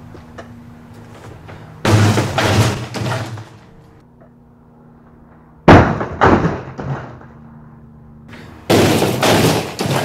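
A dishwasher dropped off a roof crashing onto a concrete driveway. Three loud crashes a few seconds apart, each followed by clattering and rattling that dies away over about a second and a half.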